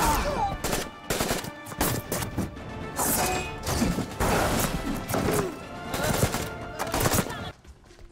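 Action-film fight soundtrack: a rapid run of gunshots, hits and crashes layered over dramatic score music. It cuts off suddenly near the end to a quiet room tone.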